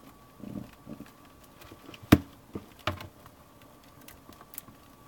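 Scattered clicks and taps of a plastic CD case and its packaging being handled, with one sharper click about two seconds in.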